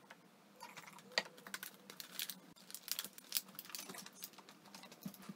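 Empty plastic water and soda bottles being gathered up off a table: a run of light knocks, clicks and crinkles of thin plastic.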